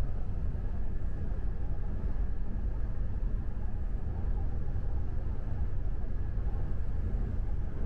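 Steady low rumble of a passenger carriage running at speed, wheels on the rails, heard from inside the carriage.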